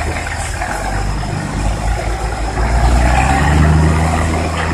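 Ten-wheel dump truck's diesel engine revving up as the truck pulls away under power. Its pitch rises from about a second and a half in and then holds near the end.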